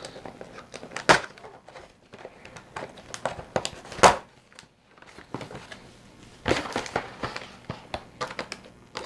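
Toy parts and packaging being handled: scattered clicks and knocks with light crinkling, with two sharper knocks about one second and four seconds in.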